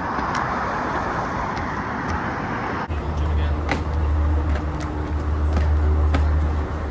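Sharp knocks of feet landing and pushing off concrete and brick walls during parkour jumps, over steady traffic noise that becomes a low steady hum about three seconds in.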